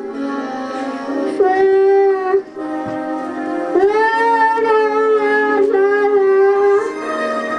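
A young child singing a Christmas song into a karaoke microphone, amplified through a small speaker with music behind. The voice holds long notes, the longest about three seconds, starting about four seconds in.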